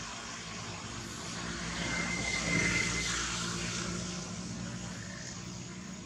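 A passing engine's drone that swells to its loudest about two and a half seconds in, then fades away.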